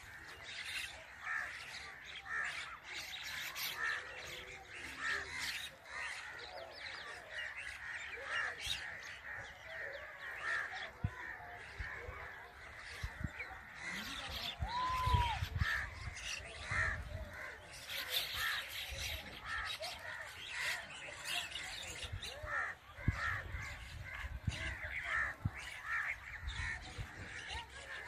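A flock of mynas calling together: many short, harsh chattering calls overlapping without a break, with one clear whistled note that rises and falls about halfway through.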